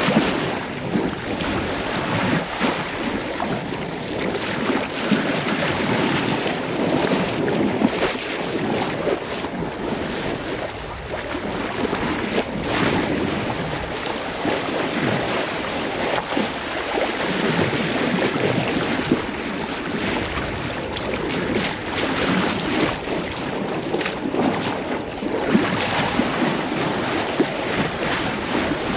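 Sea rushing past a sailboat's hull under sail, with wind buffeting the microphone, in slow uneven surges.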